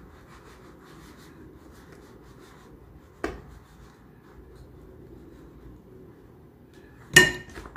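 Silicone spatula spreading and smoothing thick cake batter in a round metal cake pan, a faint soft scraping. A single click about three seconds in, then a loud knock near the end as the pan is tapped down on the counter to settle the batter.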